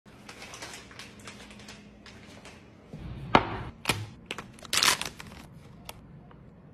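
Handling sounds while cooking: light rustling and small clatter, then a sharp knock about three and a half seconds in and a crinkling burst from a stiff foil coffee bag being handled about a second later, with a few faint clicks near the end.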